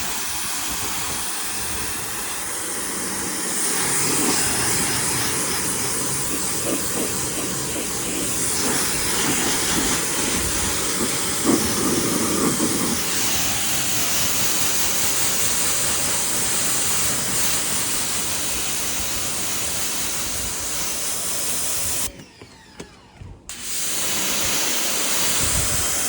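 Pressure washer spraying water to rinse snow foam off a truck's bodywork: a steady, loud hiss of spray. It cuts off abruptly about 22 seconds in and starts again a second and a half later.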